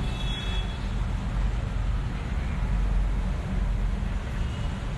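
Steady low rumble and hiss of background noise picked up by a phone microphone, with a short faint high tone just after the start.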